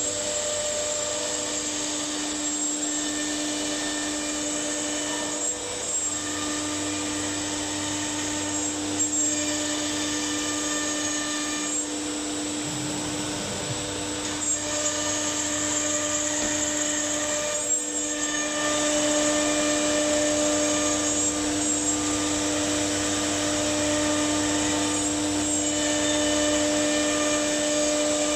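Automatic nesting CNC router at work, its spindle running with a steady high-pitched whine over a machine hum, along with the hiss of its suction.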